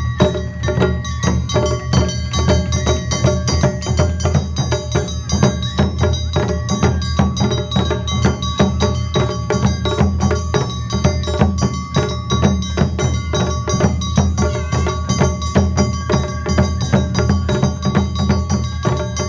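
Live Awa Odori band music: clanging hand gongs and drums beating a fast, steady rhythm over a held high note.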